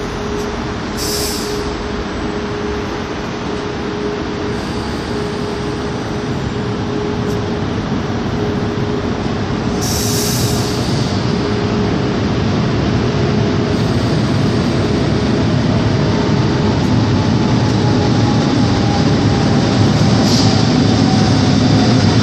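Lisbon suburban electric multiple units at a platform: a steady hum from the standing unit, and a rumble that grows louder as a second unit comes in, with short hisses of air about a second in and about ten seconds in. Near the end a whine falls slowly in pitch as the arriving train slows.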